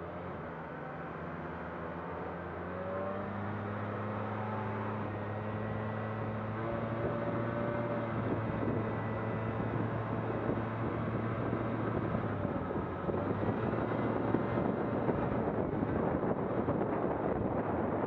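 A vehicle's engine running with a steady hum, while a rushing noise of wind and motion grows louder over the second half.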